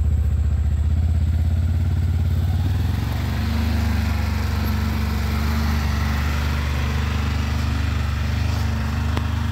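Polaris Ranger 1000 side-by-side utility vehicle's twin-cylinder engine running as it pulls away under a load of cut grass, its note changing about three seconds in and then holding steady.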